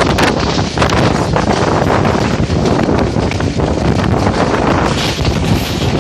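Wind buffeting a microphone held out of a moving passenger train's window, in irregular gusts over the train's steady running noise.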